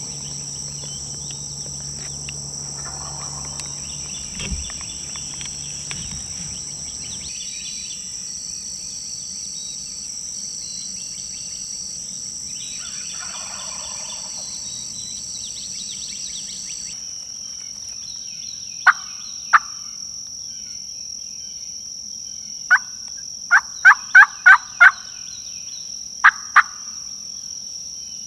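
Steady trilling of insects, then a series of loud, close, turkey-like yelps. There are two single yelps, then one more, then a quick run of five, and two more near the end. They sound like a hunter working a turkey call.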